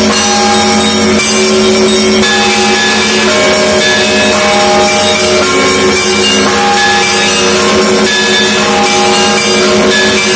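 Russian Orthodox monastery bells rung together in a continuous peal. Many bells of different pitches are struck one after another, their tones overlapping and ringing on.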